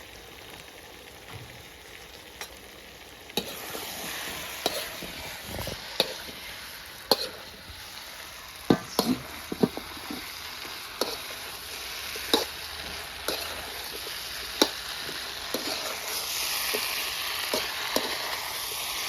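Okra frying and being stirred: a steady sizzle that gets louder about three seconds in and keeps building, with many sharp clicks and scrapes of a utensil against the pan.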